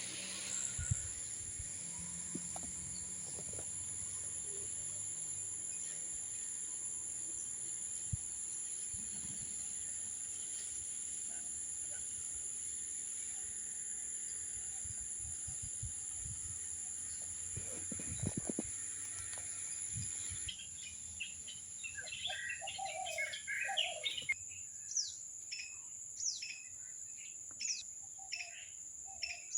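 Birds chirping in short, falling notes that repeat from about two-thirds of the way through, over a steady high-pitched whine and hiss.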